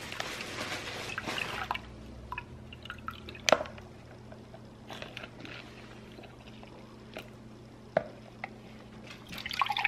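Milk pouring from a plastic jug into a plastic measuring cup for about two seconds, followed by a few light clicks and knocks as the cup is handled.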